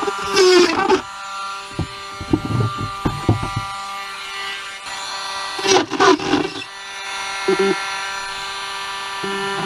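Parkside 12V cordless rotary tool running with a steady whine as its bit drills holes in a plastic container. The bit bites into the plastic with rough bursts about half a second in and again around six seconds in, with a few knocks in between.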